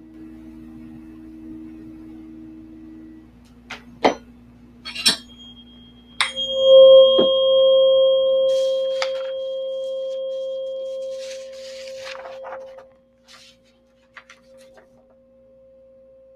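Tuning forks ringing as pure steady tones. Two low tones sound at first and one stops about three seconds in. After a few sharp taps, a fork is struck about six seconds in and rings out loud and steady with a thin higher overtone, slowly fading while a lower fork keeps sounding beneath it.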